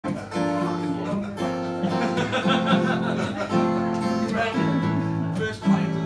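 Acoustic guitar strummed in a steady rhythm, the chord changing every second or so: the instrumental introduction to a song, before the vocal comes in.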